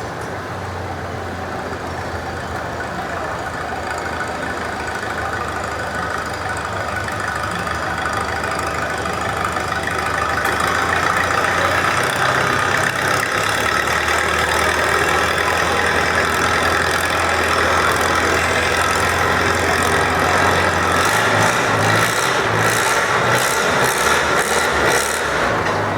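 Farm tractor engine working hard under load while pulling a weighted sled. It gets louder over the first ten seconds or so, then runs steadily.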